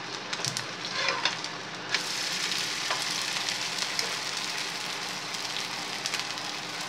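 Semiya dosa frying in oil on a hot nonstick dosa pan, with a steady sizzle. A few short spatula scrapes and taps come in the first two seconds as the dosa is turned over, and the sizzle grows louder about two seconds in as its other side goes down on the hot pan.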